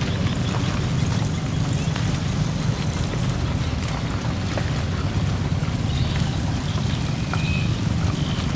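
Steady low rumble of vehicle engines as an SUV and cars creep slowly through deep mud.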